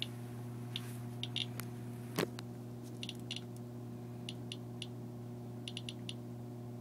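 Medcom Inspector EXP Geiger counter clicking irregularly as it counts radiation from a radium compass getting through a foil-covered lead sheet, with one louder click about two seconds in.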